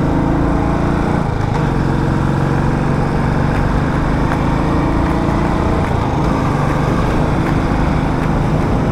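Motorcycle engine running steadily as the bike rides along, with a broad rush of wind over the microphone; the engine note shifts slightly about a second in.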